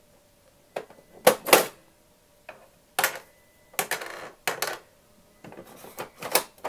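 Plastic Fisher-Price toy cash register being worked by hand: keys clicking as they are pressed and the cash drawer clacking open and being pushed, about a dozen sharp clicks and clacks in uneven groups.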